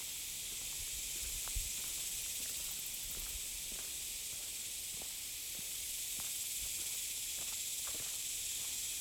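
Cicadas in the trees buzzing in a steady, high-pitched chorus, with a few faint ticks underneath.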